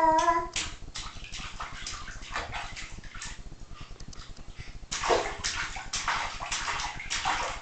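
A baby splashing bathwater with her hands in a tub: repeated slaps and splashes, busiest from about five seconds in. At the very start a short baby's cry, falling in pitch, trails off.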